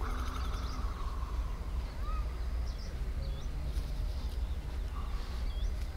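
Scattered bird chirps, short whistled notes that rise or fall, over a steady low rumble.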